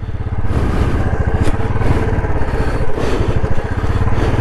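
Royal Enfield Bullet 350's single-cylinder engine running at steady revs while the motorcycle is ridden along a dirt trail, its firing pulses making a quick, even beat.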